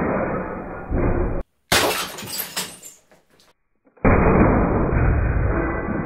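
Liquid-filled glass bottle hit by a .43-calibre steel ball and shattering. A sharp crash of breaking glass comes about two seconds in and clatters on for about a second. From about four seconds in there is a loud, dull, deeper rumble of the burst.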